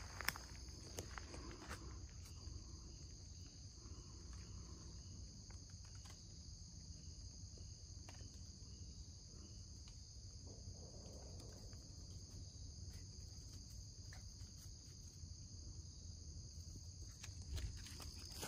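Faint, steady high-pitched chorus of insects such as crickets, with a few soft footsteps on the trail.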